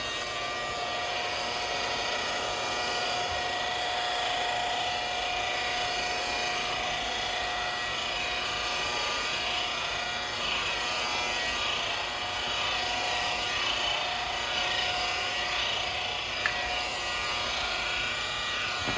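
Cordless rotary polisher running steadily at low speed, its soft foam pad spreading polish across a clear vinyl boat window.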